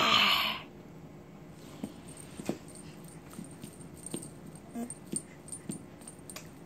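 A short breathy voice sound, then a string of faint, irregular light taps and rustles as a small toy is waved and swatted against a foam play mat.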